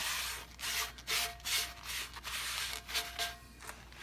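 A frying pan being wiped out by hand to clear leftover meat bits: a quick series of rubbing strokes against the pan's surface, about two a second, dying away near the end.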